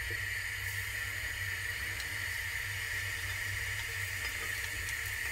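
Hot oil sizzling steadily in a frying pan around a floured strand of string cheese dropped in as a test piece, a sign the oil is hot enough to fry.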